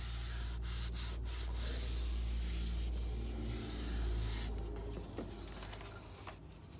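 Hands rubbing glued decoupage paper flat against a painted wooden board: a steady dry rubbing that fades out about four and a half seconds in.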